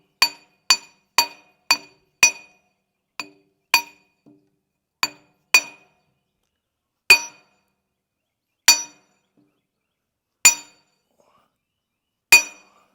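Hammer blows on steel, driving out the boom cylinder pin of a Hitachi EX100 excavator, each strike ringing metallically. About a dozen strikes, quick at first, about two a second, then slowing to one every couple of seconds.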